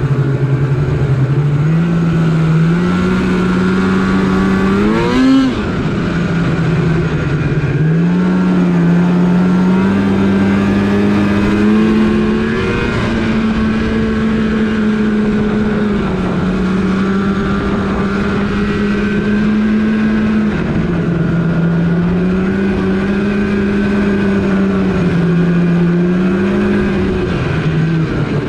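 Snowmobile engine running under throttle on the move, its pitch rising and falling repeatedly, with a sharp rev about five seconds in.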